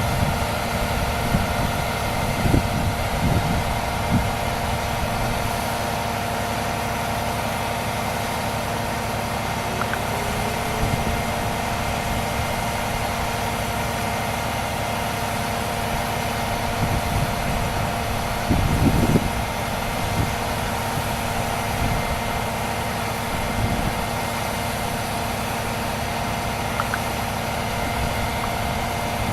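A vehicle engine idling steadily, with a few brief low thumps; the loudest comes about two-thirds of the way through.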